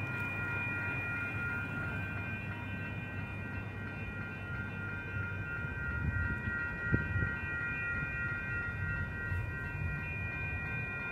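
Railroad crossing warning bell ringing steadily at a light-rail grade crossing, a chord of several high tones, over a low rumble of traffic. A single thump comes about seven seconds in.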